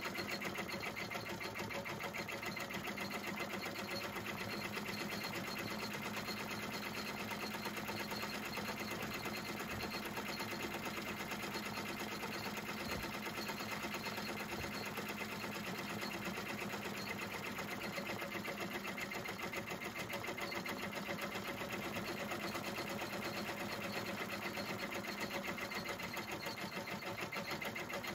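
Embroidery machine stitching continuously, a rapid even run of needle strokes with a steady mechanical hum.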